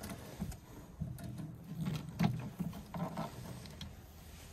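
Needle-nose pliers working the small coil springs off the retaining pin of an ATV plow's shear-pin mount, giving a few light metallic clicks and scrapes. A low rumble comes and goes under them.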